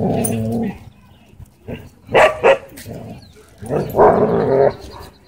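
A pack of dogs vocalizing as they crowd a dog pinned on its back. There is a long drawn-out call at the start, two sharp barks a little over two seconds in, and another long drawn-out call about four seconds in.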